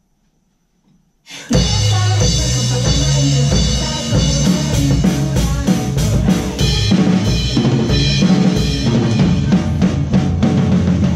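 After about a second of near silence, a pop song's recorded track starts, and an acoustic drum kit is played along with it: kick drum, snare and cymbals hit over the music.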